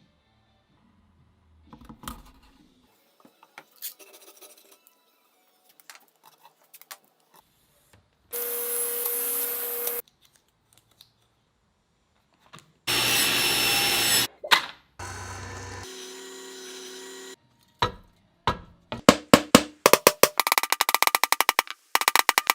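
A string of workshop sounds from woodworking. There are faint scrapes and taps, then two loud bursts of a power tool running a second or two each, a quieter steady machine stretch, and a fast run of sharp knocks near the end.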